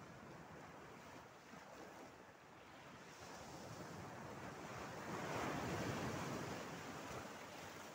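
Small sea waves washing onto the shore, with a light wind. One wash swells up about five seconds in and then fades.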